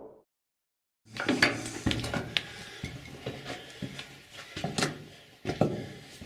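Footsteps crunching and clattering over loose rock in a mine tunnel: irregular sharp knocks and scrapes that start after about a second of silence.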